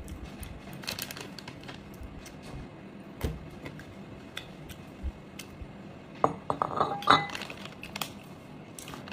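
Porcelain bowl clinking against a wooden table as it is handled and set down: a few light knocks, then a cluster of sharp ringing clinks in the second half.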